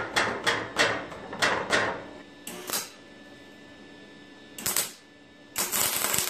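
A quick run of about half a dozen sharp metal-on-metal taps as the steel exhaust-crossmember bracket is knocked into square on the frame. A short crackle follows, and near the end a MIG welder strikes an arc and crackles steadily, tack-welding the bracket.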